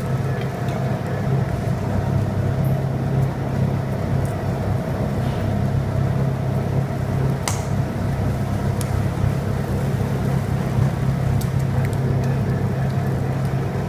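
Two-roll rubber mixing mill running with a steady low drone as silicone compound is worked between its steel rollers, with a few sharp clicks, the clearest about halfway through.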